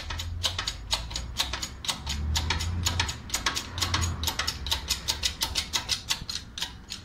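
Shop press being worked to push a wheel hub into a new double-row wheel bearing: a steady run of short, even clicks, about four or five a second, as the press ram comes down little by little, with a low hum underneath.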